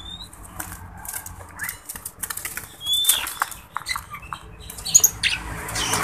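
Oriental magpie-robin fluttering its wings inside a wire cage, heard as a run of quick flaps and taps, with a few brief high rising chirps.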